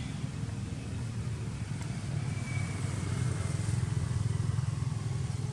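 Steady low rumble of road traffic, a motor vehicle engine running, growing a little louder past the middle.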